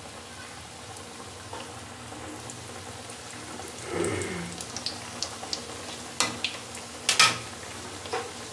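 Stuffed urad dal kachoris deep-frying in hot oil in a kadhai: a steady sizzle with scattered pops and crackles. A few sharp clinks of a slotted steel skimmer against the pan come about six and seven seconds in.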